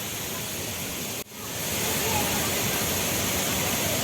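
Steady rushing roar of the Gundichaghagi waterfall. It drops out for an instant about a second in, then comes back louder.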